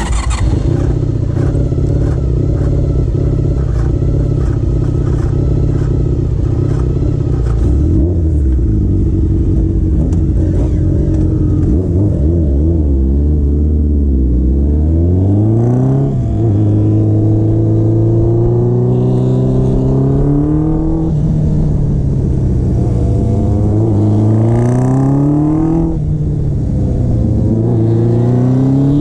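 Honda CBX750 cafe racer's air-cooled inline-four engine idling steadily for several seconds, then pulling away and accelerating hard, its pitch rising through each gear with upshifts about every five seconds.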